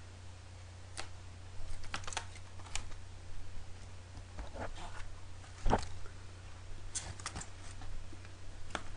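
Cardboard boxes being handled and moved about on a desk: scattered, irregular taps, clicks and short scrapes, the loudest a little before six seconds in, over a steady low hum.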